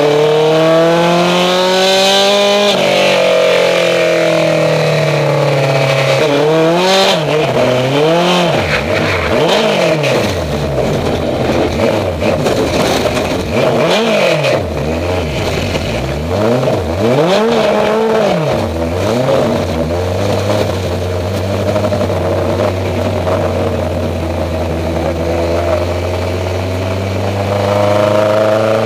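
Mini super stock race car's engine heard from inside the cockpit: it accelerates for the first couple of seconds, then the revs swing quickly up and down over and over, then hold steady and low before climbing again near the end.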